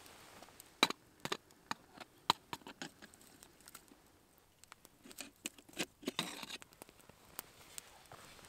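Small wood fire crackling under a kettle: irregular sharp pops and snaps, a few loud ones in the first couple of seconds. A brief rustle comes about six seconds in.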